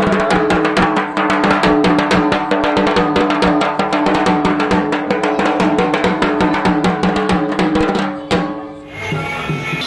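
Music with fast, even drumming, about seven strokes a second, over held tones. About eight seconds in it breaks off and different music starts.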